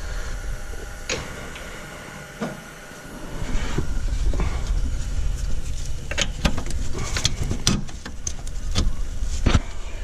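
Scattered clicks and metallic knocks of parts and tools being handled during hands-on work on a car's wheel hub, coming thicker in the second half, over a steady low rumble.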